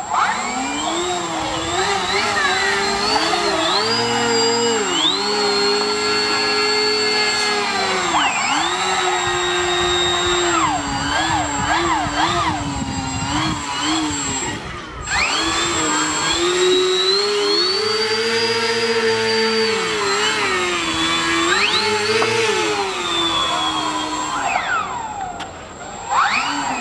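Electric DC motor spinning the propeller of a small homemade airboat, whining loudly with its pitch rising, holding and dropping again and again as the throttle is changed by remote control. The whine breaks off briefly about halfway through.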